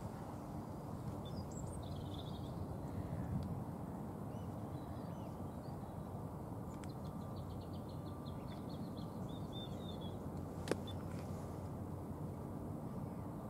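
Steady low outdoor rumble with birds calling over it: a short call early, then a rapid run of high notes from about seven to ten seconds in. A single sharp click comes late on.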